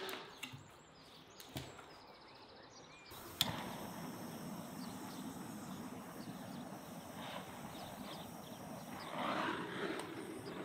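Steady outdoor background hiss with small bird chirps. About nine seconds in, a brief scratchy rustle while kindling is lit for a samovar fire.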